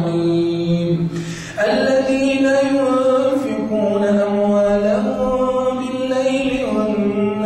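A male imam chanting Arabic recitation in a slow melodic style, holding long notes. He breaks off about a second in and starts a new phrase on a higher pitch.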